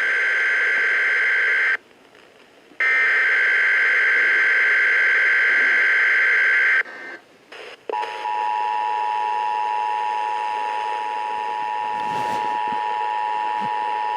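Emergency Alert System test heard over a radio. First come the harsh digital SAME header data bursts, two long blocks about a second apart. About 8 seconds in, the steady two-tone EAS attention signal starts and holds.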